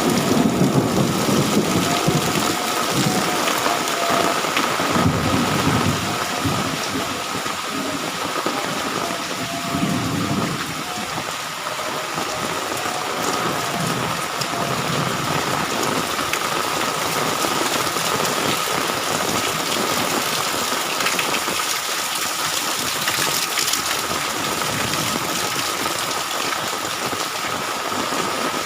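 Heavy rain pouring in a steady, dense hiss, with several low rumbles of thunder in the first half that then fade, leaving the rain alone.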